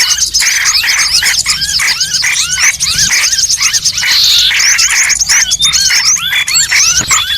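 Dense, overlapping chorus of bird calls from a bird-luring (pikat) recording: rapid repeated arching chirps, several a second, layered over higher, faster twittering.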